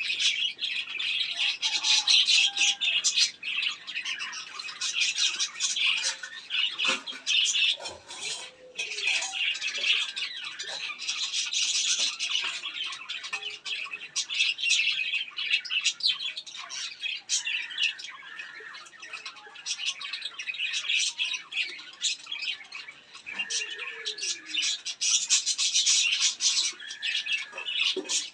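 A group of birds chattering and squawking: a dense, unbroken mass of quick high-pitched calls, with a few harsher squawks mixed in.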